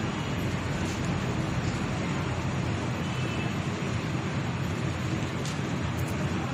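Steady street ambience: an even, low rumble with no distinct voices or single sharp sounds.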